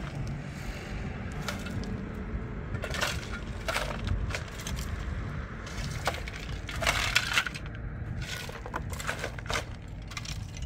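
Shovels scraping into stony dirt and tipping rocks into a steel wheelbarrow, heard as irregular scrapes and clatters over a steady low rumble. The loudest clatter comes about seven seconds in.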